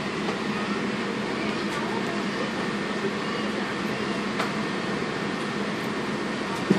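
Steady rush and hum of an Airbus A380 cabin's air-conditioning during boarding, with a low steady drone under it. A brief knock near the end.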